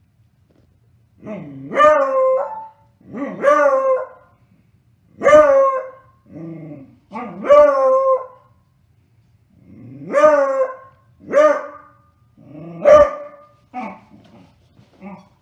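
Beagle barking at a toy: about eight drawn-out barks a second or two apart, each rising then falling in pitch, then a few short, quieter barks near the end.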